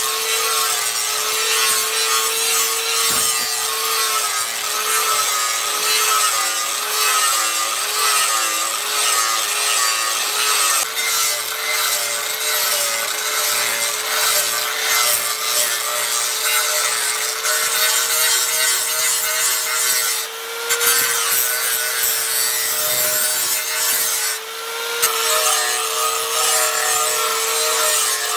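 Electric abrasive power tool running under load while working the knife: a steady, slightly wavering motor whine over a dense grinding hiss. It eases off briefly twice in the second half.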